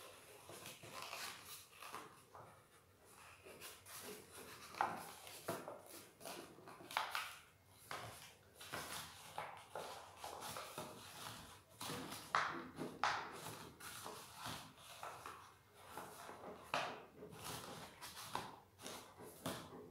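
Paper rustling and crinkling in irregular short strokes as a folded paper box is handled and its flaps are pressed and tucked in.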